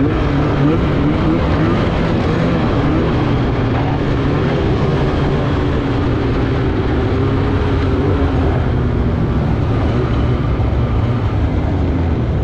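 Snowmobile engine running under the rider at trail speed, its pitch rising and falling with the throttle over a haze of track and wind noise, then holding steadier in the second half.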